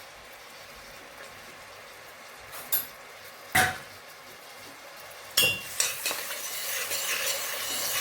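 Onion and garlic sizzling faintly in hot oil in a stainless steel pot, with two sharp knocks of a spoon against the pot. From about five and a half seconds in, louder stirring, the spoon scraping and clinking around the pot over the frying.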